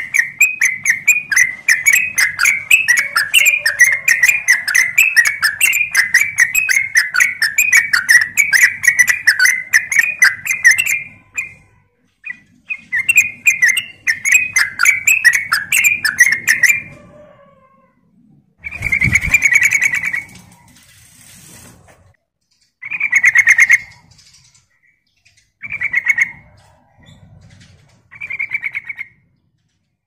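Yellow-vented bulbul singing: a fast, bubbly chattering run of many notes a second for about eleven seconds, a second run of a few seconds, then a few short separate phrases with pauses between. A brief low thump comes about midway.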